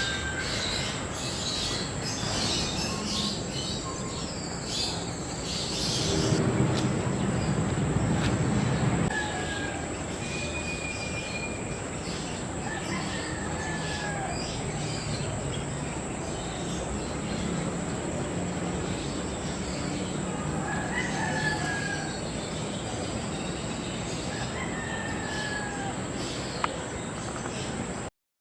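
Outdoor bird ambience: short whistled bird calls, some rising and some falling, come every few seconds over a steady high thin whine. A louder, lower sound swells in for a few seconds about a quarter of the way in.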